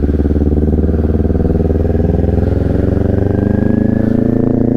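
Sport motorcycle engine running as the bike rolls along at low speed, its pitch rising gently about three seconds in as it picks up a little speed.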